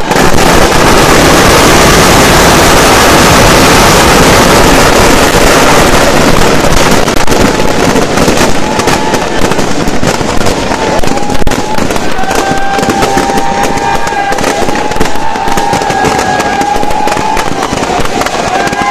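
Firecrackers packed inside a burning effigy going off in a loud, dense crackling barrage, most continuous in the first few seconds, then breaking into rapid separate bangs.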